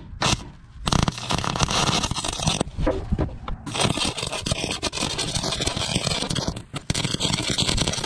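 MIG welding arc crackling in several runs, starting with a brief burst and broken by short pauses between welds.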